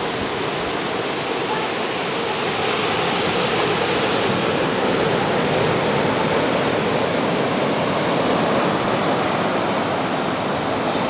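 Ocean surf breaking on a beach, a steady unbroken roar of waves.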